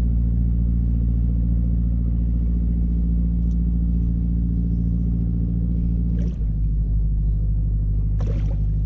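Boat engine running steadily, then throttling back to a lower, slower note about six seconds in, with a short clatter near the end.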